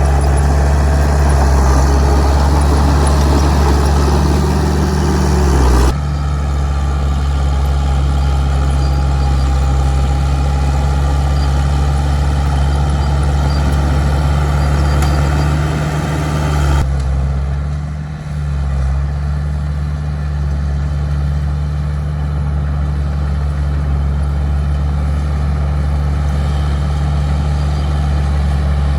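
Heavy diesel engine of earthmoving machinery running steadily with a low drone. The sound shifts abruptly twice, about six seconds in and again near seventeen seconds.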